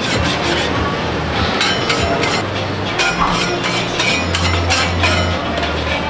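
A metal spatula clinks and scrapes in quick bursts against the round iron jianbing griddles as crepes are folded and lifted. Under it is a steady low hum that swells about four seconds in.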